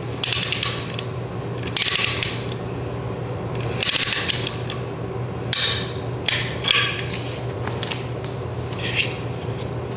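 Torque wrench ratcheting in about six short bursts of clicks as the last engine-cover bolt is run down toward its 9 Nm torque spec. A steady low hum runs underneath.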